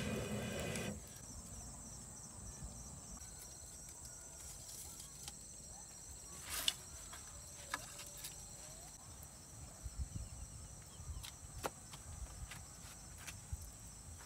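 Steady high-pitched chirring of insects, crickets by the sound of it, throughout. A loud pitched sound fills the first second, and scattered light knocks and footsteps follow later on.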